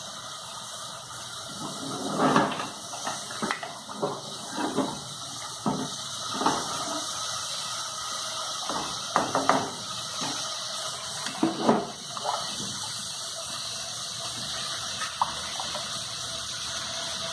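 Cooked black beans and broth being ladled from a pressure cooker into a pot of wilting greens: irregular splashes and knocks of the ladle, a dozen or so in the first twelve seconds, over a steady hiss.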